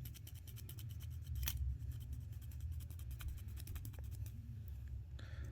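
Rapid small plastic clicks, then sparser ones with one sharper click about a second and a half in, as a 3D-printed PLA cupholder arm is worked back and forth on its spring-loaded pivot pin to test its movement.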